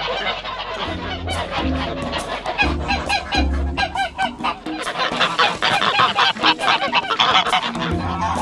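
A flock of domestic geese honking, many short calls overlapping and growing busier about halfway through. Low music notes run underneath from about a second in.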